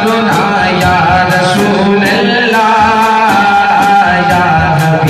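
A man singing a naat, an Urdu devotional praise song, into a microphone in long melodic held lines, over a steady beat of sharp strikes about three a second.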